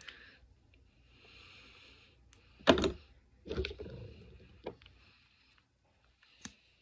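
Soft breaths through the nose, with a few sharp clicks and knocks from small plastic makeup tubes being capped, twisted open and handled; the loudest knock comes a little under three seconds in.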